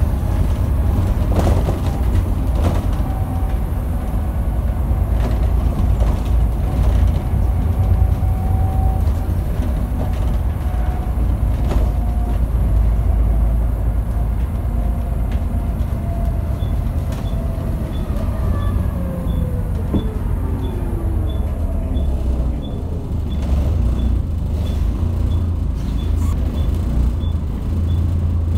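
Volvo bus heard from inside the cabin, its diesel engine and gearbox running with a steady low rumble and a whine. The whine holds level, then falls away about two-thirds of the way in as the bus slows. Over the last third comes a light regular ticking, about two a second.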